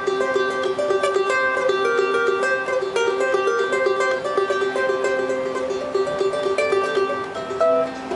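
Ukulele played solo: an instrumental passage of quick plucked and strummed notes.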